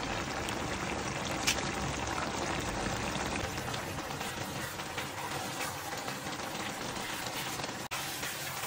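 Pinakbet vegetables and sauce simmering and sizzling in a wok, a steady hiss, with one sharp click about one and a half seconds in.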